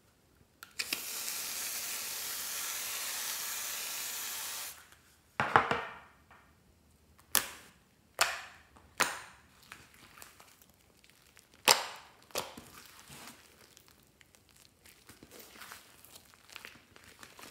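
An aerosol foam can sprays a steady hiss for about four seconds as foam is piled onto the slime. Then hands press into the foam-covered slime, giving about six sharp wet squelches and pops, followed by softer crackly squishing as the foam is kneaded in.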